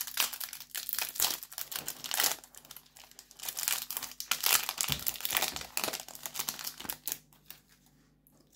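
Crinkling and tearing of a Yu-Gi-Oh! booster pack's foil wrapper as it is torn open across its crimped top; the crackling dies down near the end as the cards come out.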